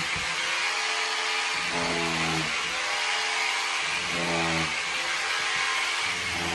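Bosch corded hammer drill running steadily as it drills into a wall, with a lower hum that swells and fades about every two seconds.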